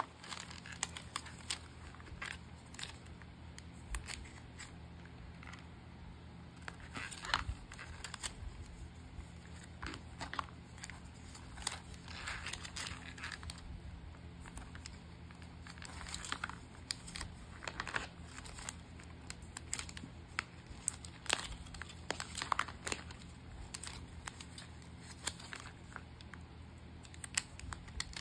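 Packaging being handled while packing orders: irregular crinkling, rustling and tearing with scattered light taps and clicks, over a faint steady low hum.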